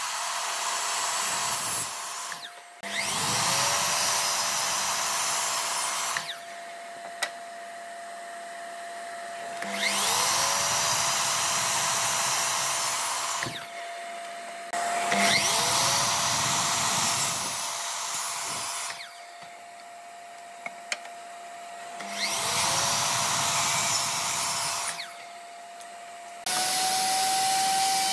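Power miter saw switched on and cutting pine again and again: about four times the motor whines up to speed and the blade cuts through the wood, with quieter lulls between. Near the end a table-mounted router starts running, its tone higher and steady.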